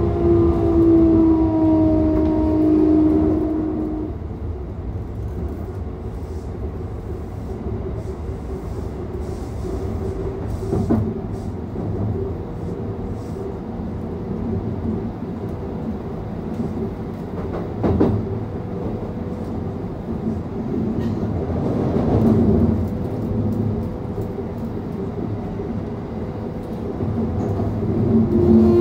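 Keikyu 600 series electric train running, heard on board car DeHa 608-8. For the first four seconds or so, the whine of its Mitsubishi GTO-VVVF traction inverter and motors falls in pitch, then stops. The train then runs on with steady wheel and rail rumble and an occasional knock, and the inverter whine starts again near the end.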